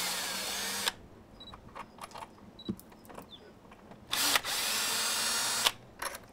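Cordless drill/driver running in two short runs, the first under a second and the second about a second and a half, backing the screws out of a door-jamb strike plate. A few light clicks of bit and screw come between the runs.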